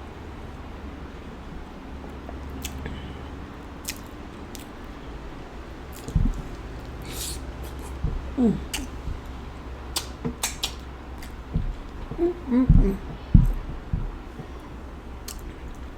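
Close-miked eating of seafood boil in sauce: after about six seconds of only a low steady hum, wet mouth clicks and smacks of chewing begin, with a few short hummed 'mm' sounds.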